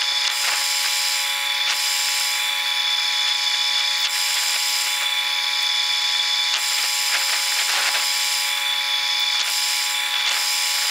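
Steady machine whine holding several fixed tones over a hiss that rises and falls, from a heavy-duty wrecker's engine and hydraulics running while it is hooked to a dump truck.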